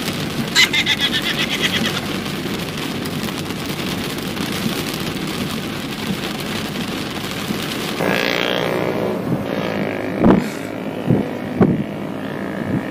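Steady road noise and rain inside a moving car's cabin. A short rattling burst comes about half a second in, and a few loud short thumps come near the end.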